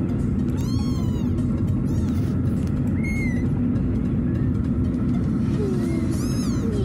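Orphaned kittens mewing: a few short, high-pitched cries, one near the start, one about three seconds in and one near the end, over a steady low rumble.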